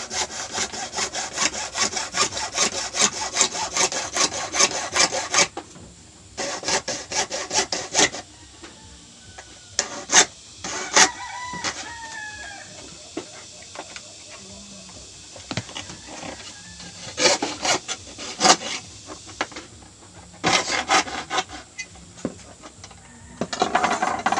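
Hacksaw cutting through orange PVC pipe in rapid back-and-forth strokes. A long run of sawing fills the first five seconds or so, then it comes in shorter runs with pauses and handling clicks between them.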